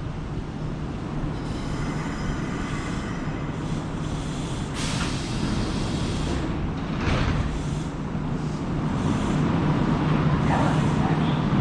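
Kintetsu electric train running at the station platform, with short air-brake hisses about five and seven seconds in, and the noise growing louder toward the end.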